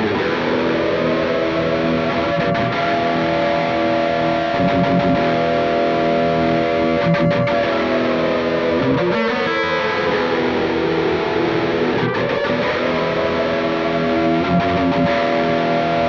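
Distorted electric guitar playing sustained, held notes, with one long note that slowly bends down in pitch and back up around the middle.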